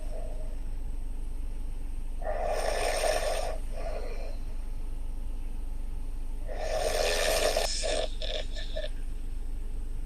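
A person snoring heavily: two long snores about four seconds apart, each trailing off into a few shorter snorting breaths, over a steady low hum.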